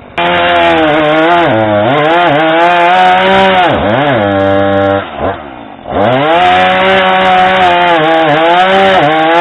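Husqvarna 440e's 40.9 cc two-stroke chainsaw engine revving hard as the chain cuts wood, its pitch sagging under load and dipping sharply about four seconds in. It drops back around the five-second mark, then revs up again and keeps cutting.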